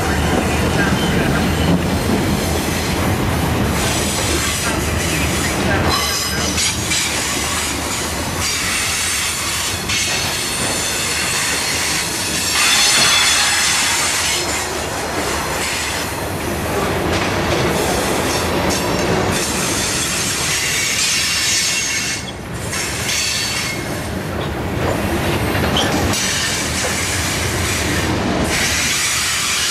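Freight cars of a CSX train rolling past close by on curving track. The steel wheels clatter over the rail joints, with a high squeal from the wheels on the curve.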